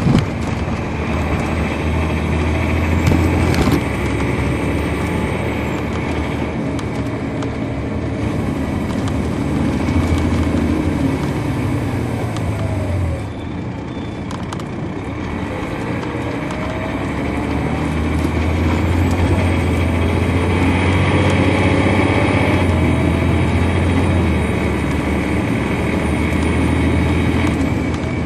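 Diesel engine of a 2003 MCI D4500 coach, a Detroit Diesel Series 60, running under way as heard from on board. Its pitch falls and it quietens about halfway through as the bus slows. It then pulls away again, rising in pitch and growing louder through the second half, with a thin high whine above it.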